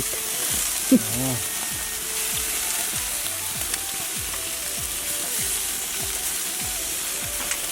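Sauce-basted beef sizzling on a barbecue grill: a steady hiss with scattered small crackles and pops.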